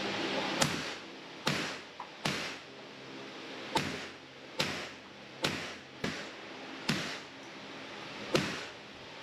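A steady string of gunshots at an indoor firing range, about one shot every second, around eleven in all, each with a short echo trailing off.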